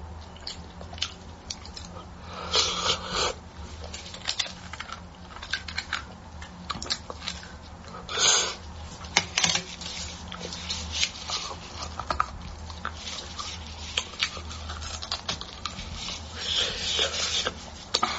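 Close-miked eating of beef bone marrow: a steady run of small wet clicks and smacks, with louder, longer bursts of sucking or slurping about 3 seconds in, about 8 seconds in and near the end.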